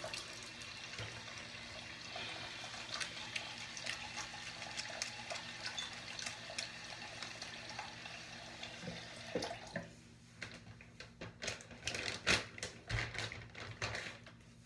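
A tap running into a bathroom sink, a steady rush of water, which stops about ten seconds in; scattered short clicks and knocks follow.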